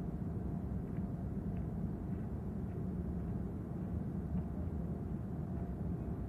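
Steady low mechanical rumble with a faint steady hum above it, even in level throughout.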